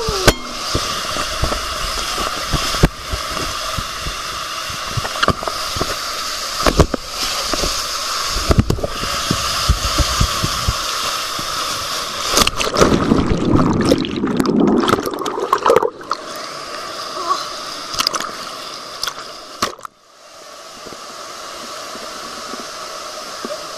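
Water rushing down a water slide with repeated sharp knocks and bumps as an inflatable raft rides it. About twelve seconds in comes a loud splash into the pool, the loudest part. The sound drops suddenly near twenty seconds in to a steadier hiss of water in the splash pool.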